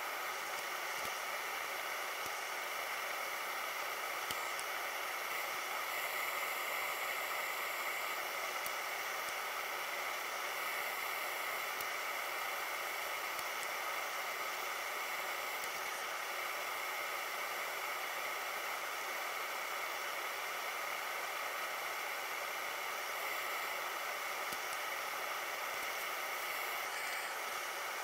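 Steady, even hiss with a faint steady whine in it, unchanging throughout.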